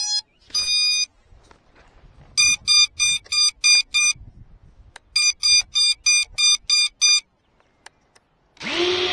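A GEPRC TinyGo 4K micro FPV drone beeping: a short tone, a longer tone, then two runs of six quick, evenly spaced beeps. Near the end a steady hum with a held tone starts up.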